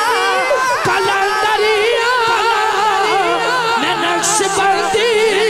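Devotional manqabat music: a melodic line of wavering, ornamented held notes, joined about three seconds in by a steady low held note underneath.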